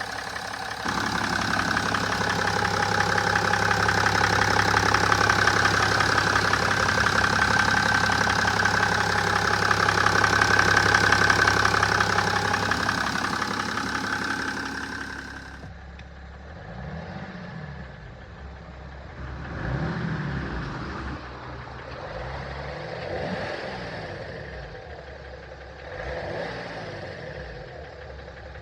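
BMW 530d's M57N2 3.0-litre straight-six diesel running with a knocking sound that the owner cannot place, asking whether it is piston knock or valve knock. It runs loud and steady for about half the time, then turns suddenly quieter and is revved briefly four times, about three seconds apart.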